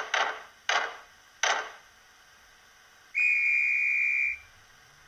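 Sound decoder of a Roco H0 BR 218 diesel locomotive model playing its departure sequence. It gives three short bursts of noise about two-thirds of a second apart, then after a pause a single steady, high whistle blast lasting just over a second: the guard's signal for the train to depart.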